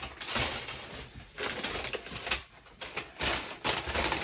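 Crumpled paper packing material rustling and crackling as it is unfolded and searched through by hand, in three or so spells with short pauses between.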